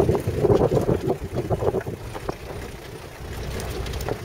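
Vehicle bumping down a rough, rocky dirt track, heard from inside: a low engine and tyre rumble with clattering knocks from the body over the stones, easing off after about two seconds.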